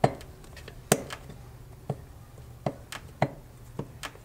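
Irregular sharp metal clicks and knocks, about ten in four seconds, the loudest at the start and about a second in: a gearbox part being wiggled down onto its shaft in a Puch ZA50 moped engine case.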